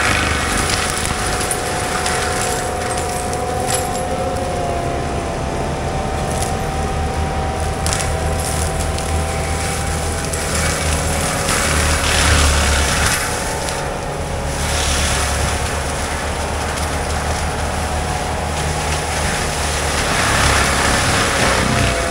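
Compact track loader running a forestry mulcher head: a steady diesel engine with the mulcher drum's whine on top, dipping in pitch as it bites into brush. Louder surges of shredding come a few times, about midway and near the end.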